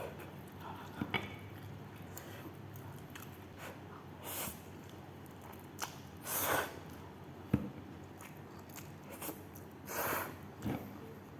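Close-miked chewing and eating of spicy instant noodles and macaroni: wet mouth sounds and small clicks, with three louder short noisy bursts a few seconds apart.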